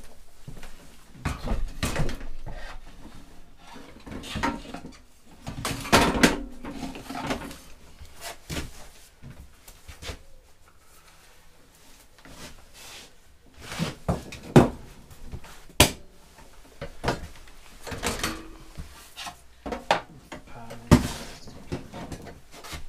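Irregular knocks, clunks and rustling of a MIG welder being set on a steel welding cart and its torch lead and cables being handled, with a few sharp knocks about halfway through and near the end.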